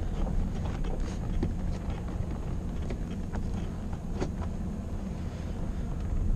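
Pickup truck driving slowly over rough, rocky ground, heard from inside the cab: a steady low engine and tyre rumble with a few short knocks and rattles.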